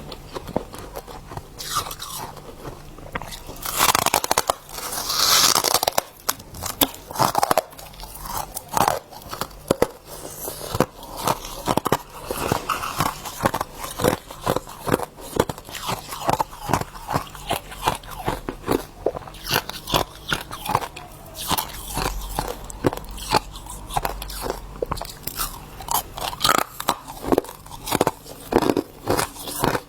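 Soft freezer frost being bitten and chewed: a steady run of crisp crunches, several a second, with a louder, longer crunching stretch about four seconds in.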